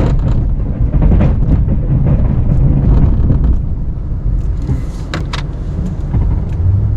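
Plow truck's engine running under load while it pushes snow with its blade, a steady low rumble. A few sharp clicks come about five seconds in.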